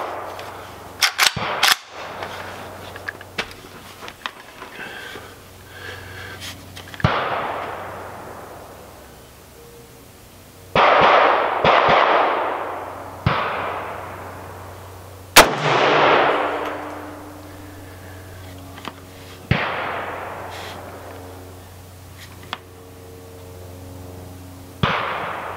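Zastava N-PAP, a semi-automatic 7.62×39 mm AK-pattern rifle, fired as slow, aimed single shots several seconds apart, each crack trailing off in a long echo. A few sharp clicks come before the first shot.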